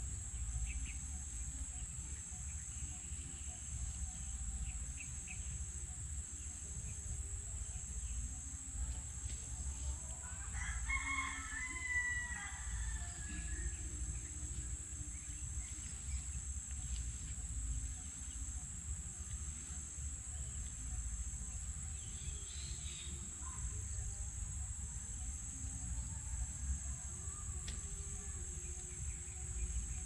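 A rooster crows once, about ten seconds in, a pitched call lasting two to three seconds, over a steady high insect buzz.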